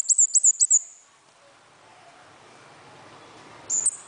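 Caged songbird calling: a quick run of loud, very high piercing notes, each with a sharp downward flick, that stops within the first second. One more short high note comes near the end.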